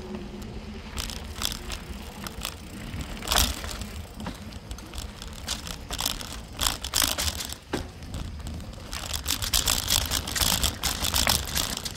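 Mountain bike tyres rolling over a dry, leaf-strewn dirt trail, crackling and crunching, with denser bursts of crackle about a third of the way in, around the middle and toward the end, over a steady low rumble.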